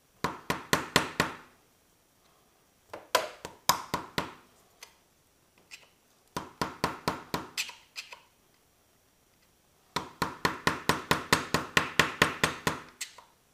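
Hammer tapping a screwdriver against the front sprocket nut's lock washer, bending its tab up against the nut: sharp, ringing metallic taps in four quick runs of about five a second, the last run the longest.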